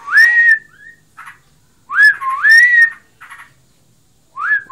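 Yellow-vented bulbul (trucukan) calling: loud, clear whistled phrases that each swoop upward, repeated about every two seconds, with short soft notes in between. The owner is unsure whether this nonstop calling is breeding excitement or ordinary full song.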